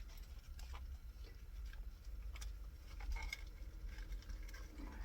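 Scattered light clicks and taps of small parts being handled by hand, over a low steady hum.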